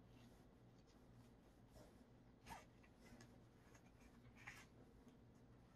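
Near silence: faint rustling of paracord being threaded and pulled through a knife-sheath wrap, with a couple of soft scratches about two and a half and four and a half seconds in, over a low steady hum.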